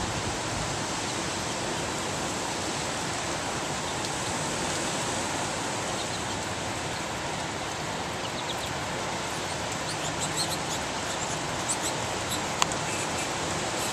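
Steady heavy rain from a hurricane falling on a wet street and lawn, an even hiss, with a few faint drip ticks.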